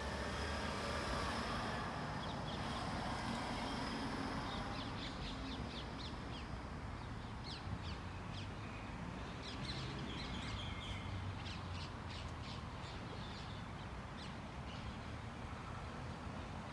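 Birds chirping in quick runs of short, high calls over a steady low background rumble.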